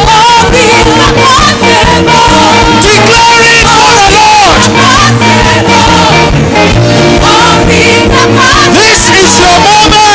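Live church praise and worship music: a singer leads a song over a band with a steady beat, with the congregation singing along.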